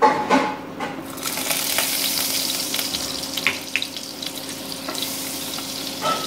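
Butter sizzling and foaming as it melts into hot oil in a nonstick kadhai, with a spatula scraping and tapping the butter off in the first second. The hiss sets in about a second in and holds steady, with a few small pops.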